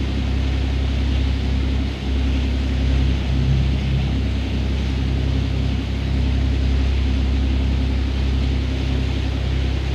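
Fishing boat's engine running steadily at slow trolling speed, a constant low drone with a steady hiss over it.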